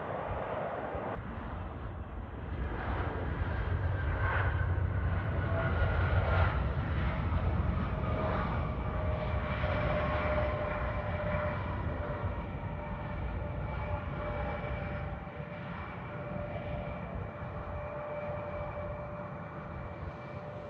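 Jet airliner's engines passing close by: a low rumble swells to its loudest about six seconds in and then slowly fades, with whining tones that glide gradually down in pitch.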